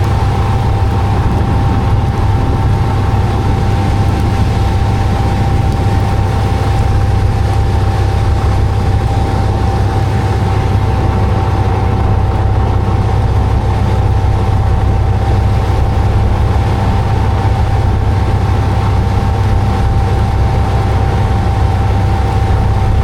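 An engine running steadily: a constant low drone with one steady tone above it, unchanging throughout.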